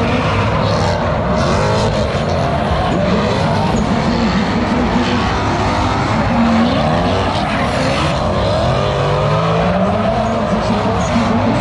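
Drift cars sliding through a corner: engines revving, their pitch rising and falling repeatedly, over continuous tyre skid and squeal.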